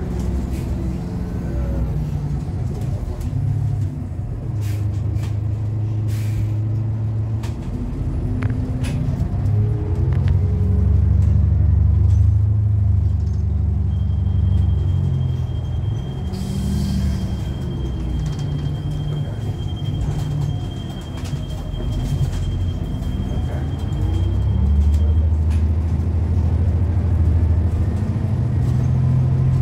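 Diesel-electric hybrid city bus (New Flyer XDE40 with a Cummins ISL9 diesel engine) on the move, heard from inside the cabin: the engine note rises and falls in steps as the bus speeds up and slows, with rattles and clicks throughout. A short burst of air-brake hiss comes about 17 seconds in, and a thin, steady high tone runs from about 14 to 25 seconds in.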